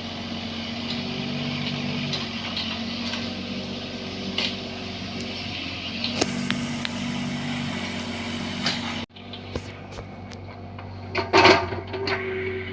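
Bobcat 322 mini excavator's diesel engine running steadily, with scattered knocks and clicks. The sound drops out abruptly about nine seconds in and comes back at a lower level, and a loud clatter follows near the end.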